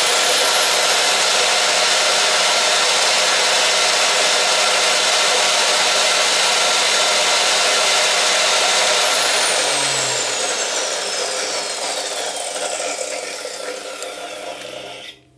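DeWalt abrasive chop saw's motor running at full speed through a router speed controller, a loud steady high whine at about 3,500 rpm. About nine seconds in it is switched off and winds down, its whine falling in pitch and growing quieter, until the sound stops abruptly near the end.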